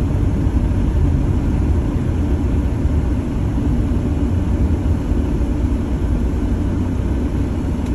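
Semi truck's diesel engine running with a steady low rumble, together with road noise, heard from inside the cab.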